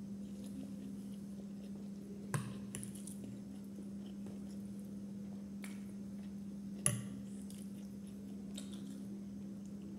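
Quiet eating at a table: a steel spoon clinks sharply against a ceramic bowl twice, about two seconds in and again near seven seconds, with a few fainter taps. A steady low hum runs underneath.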